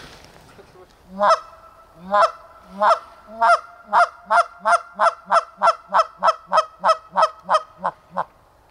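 Canada goose call blown by a hunter: a run of about eighteen honks, each breaking from a low note into a higher honk. The notes start slow and spaced out, then quicken into a fast, even cadence of about three a second before stopping.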